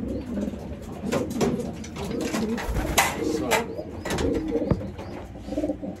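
Homing pigeons cooing repeatedly in a loft, many overlapping low calls, with a few sharp knocks among them.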